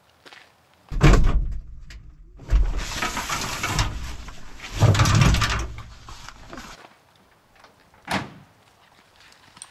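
A pickup truck's door shutting with a single sharp thud about eight seconds in. It is preceded by several seconds of loud rushing noise with a deep rumble, broken by a short gap.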